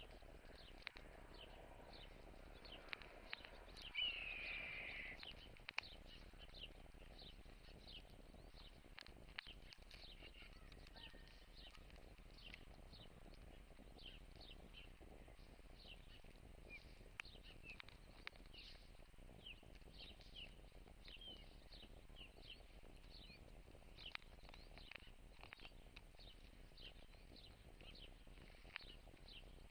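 Faint outdoor ambience with small birds chirping in short, scattered notes throughout. About four seconds in comes one louder sound lasting about a second and a half that falls in pitch.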